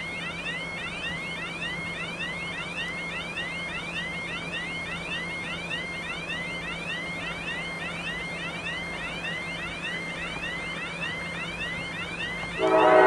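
An electronic warning signal repeats a short rising chirp, about two and a half times a second, over a low steady hum. Near the end the approaching GE TE33A diesel locomotive sounds its horn, a loud chord of several tones.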